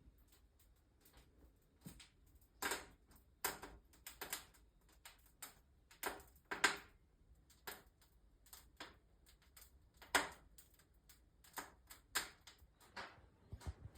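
Wood fire crackling in a fireplace: irregular sharp pops and snaps, some louder than others.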